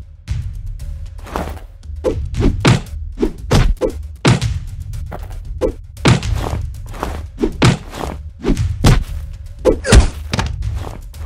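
Fight sound effects: a rapid, irregular series of punch and hit thuds, about two a second, with the loudest hit near the end, over steady background music.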